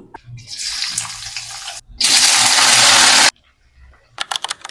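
Water running from a tap: a lighter flow, then a much louder gush about two seconds in that stops abruptly a little over a second later. A run of rapid clicks follows near the end.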